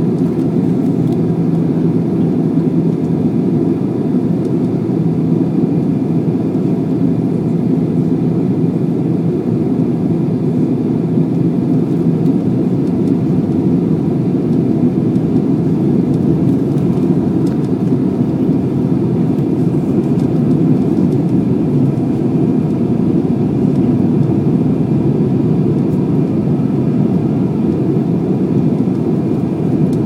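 Steady jet airliner cabin noise on descent: engine and airflow noise heard from inside the cabin, mostly low and even, with a faint steady hum above it.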